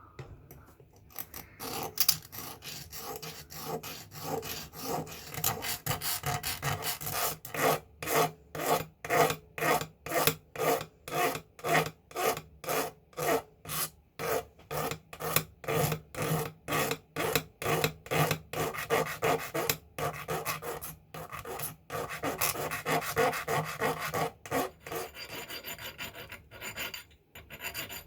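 Hand file rasping back and forth on a metal razor part in even strokes, about two a second, becoming quicker and less regular near the end.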